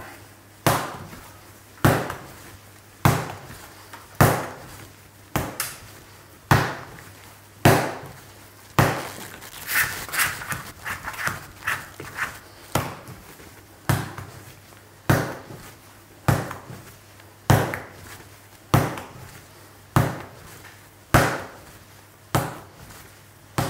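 Soft bread dough slapped down onto a wooden workbench and folded over by hand, a wet slap about once a second in a steady rhythm, with a run of lighter sticky crackles about ten seconds in. The dough is late in mixing, getting stronger and coming away from the hands.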